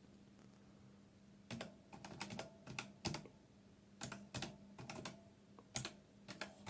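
Typing on a computer keyboard: about a second and a half in, a run of irregular key clicks begins and carries on, over a faint steady hum.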